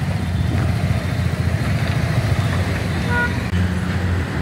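Suzuki V-Strom SX's 250 cc single-cylinder four-stroke engine running steadily as the motorcycle rolls slowly at low speed.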